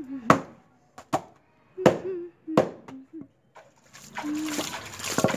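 A flat wooden washing paddle beating a wet, soapy door mat on a washing stone: about five sharp wet slaps, roughly one every 0.7 s, the last one weaker. About four seconds in the beating stops and a steady wet rustle sets in as the mat is worked by hand.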